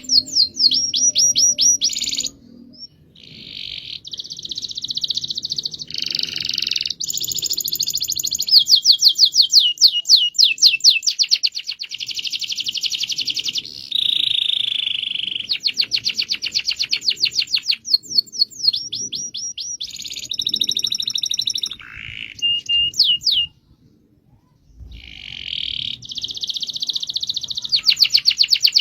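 Domestic canary singing a long song of fast rolling trills, rapid runs of repeated high notes one after another, with two short breaks, one a few seconds in and one near the end.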